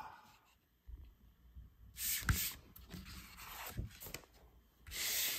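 Paper decal sheets rustling and sliding as they are handled, in short bursts about two seconds in and again near the end, with a couple of light knocks in between.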